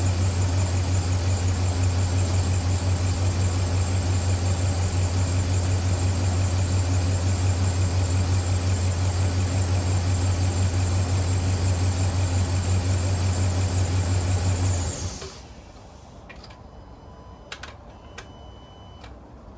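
A Dodge truck's 5.7 L Hemi V8 idling steadily and evenly after a cylinder-5 misfire repair, which the scanner shows as cleared. It is switched off about 15 seconds in and cuts out suddenly, followed by a few faint short beeps and clicks.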